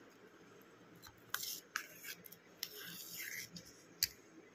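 Steel spoon stirring wet rice in a steel plate: faint scraping of the spoon across the plate with a few light clinks, and a longer scrape about three seconds in.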